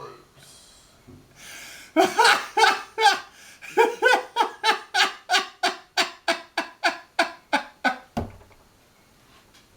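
A man laughing hard: a breath in, then a long run of rhythmic 'ha' pulses, about three a second, that stops about eight seconds in with a short low thump.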